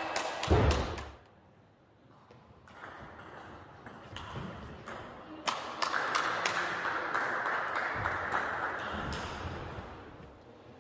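Table tennis balls clicking off tables and bats, scattered single pings with a dull thud about half a second in.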